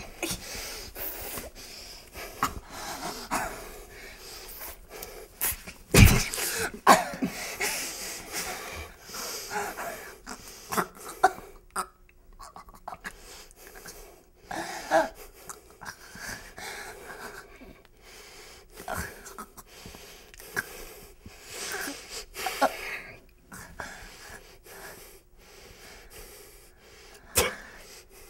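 A person being choked: ragged gasps, wheezes and coughs in irregular bursts. There is a heavy thump about six seconds in.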